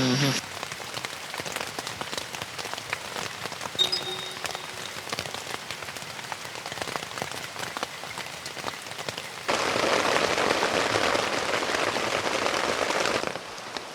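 Rain falling steadily, a dense hiss of many small drop impacts. It grows louder for a few seconds about two-thirds of the way through, then drops back.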